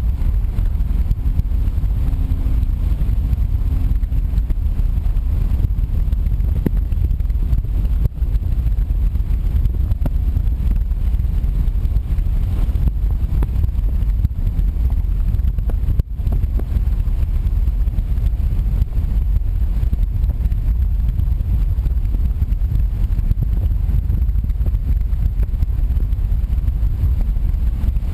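Car driving along the highway: a steady, low rumble of road and engine noise with some wind.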